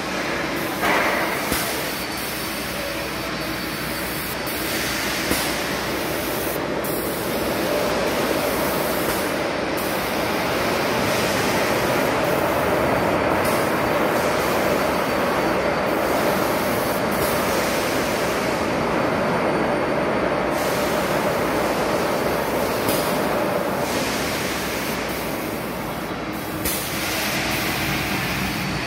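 Airless paint spray gun of a Tornado Tiger 60:70 sprayer spraying paint at high pressure: a loud, steady hiss, briefly dropping off a few times, with a steady hum underneath.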